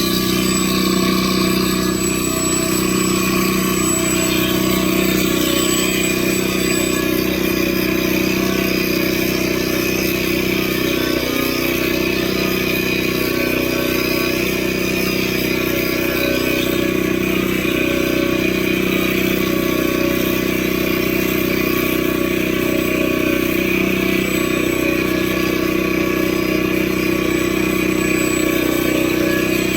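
A steady motor hum with a slow, regular pulse about every two seconds.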